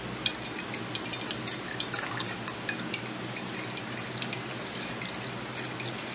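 Strawberry extract dripping from a squeezed cheesecloth bundle into the extract already in a glass measuring cup: irregular light drips over a faint steady low hum.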